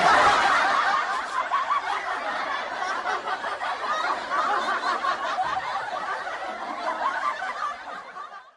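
Many people laughing at once, strongest at the start and fading out toward the end.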